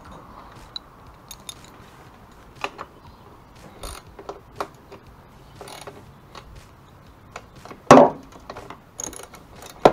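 A hand socket ratchet and metal parts handled on a motorcycle frame: scattered clicks and metal clinks, a loud clank about eight seconds in, and quick ratchet clicking near the end.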